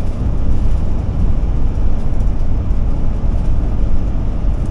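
Steady road noise inside the cab of a Ford E450-chassis Class C motorhome cruising on the highway: a constant low rumble of engine, tyres and wind.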